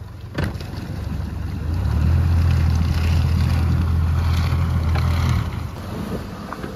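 Mercury outboard motor running hard with a steady low hum, together with the rush of water churning in the boat's wake. A sharp knock comes about half a second in; the motor grows louder about two seconds in and drops back a little after five seconds.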